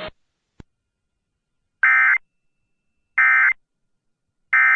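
Emergency Alert System end-of-message data bursts: three short, buzzy digital squawks about 1.3 s apart, the signal that closes the alert broadcast.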